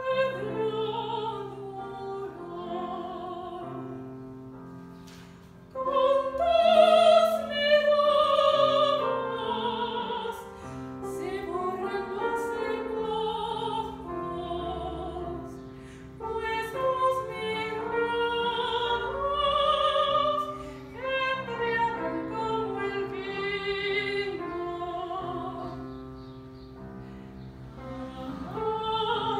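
Classical soprano singing a Spanish-language art song, accompanied on a digital piano. Her voice thins out for a moment and comes back strongly about six seconds in.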